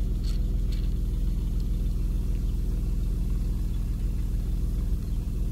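A car engine idling steadily, a low even hum heard from inside the cabin, with a couple of light clicks in the first second.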